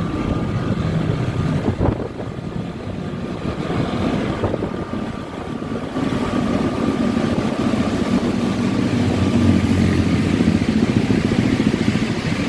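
Honda ADV 150 scooter's single-cylinder engine running steadily while ridden down the road, louder from about halfway through. It keeps running on the test ride: no cut-out.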